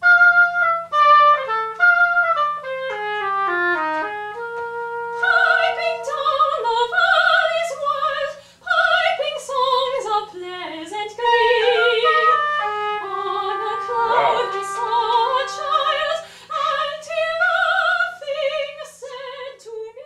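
Oboe playing a descending run of short notes. About five seconds in, a soprano voice joins, singing with strong vibrato, and the two lines weave together as a duet.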